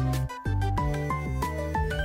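Background music: an upbeat instrumental tune with a bass line, quick melody notes and a steady beat.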